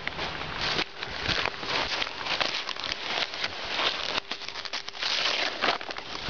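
Large brown paper sack crinkling and rustling as a dog mouths and shakes it, a continuous crackly rustle dense with small crackles.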